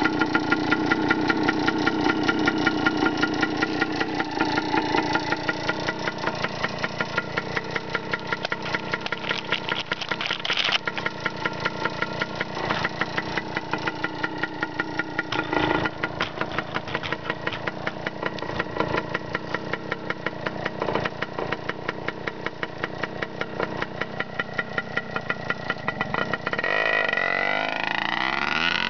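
1974 Hodaka Dirt Squirt's 100cc two-stroke single-cylinder engine idling with a fast, regular popping beat. Near the end the revs rise as the bike pulls away.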